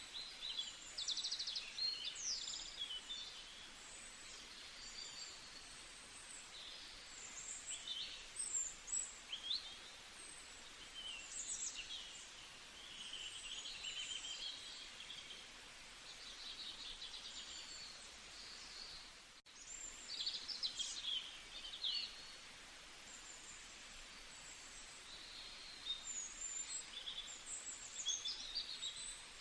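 Several songbirds chirping and singing at once, short calls and trills overlapping over a steady background hiss, with a brief dropout about two-thirds through.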